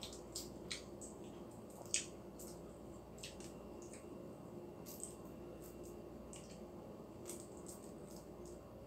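Faint, scattered crackles and ticks of eggshell being picked off a boiled balut (fertilized duck egg) by hand, over a steady low hum.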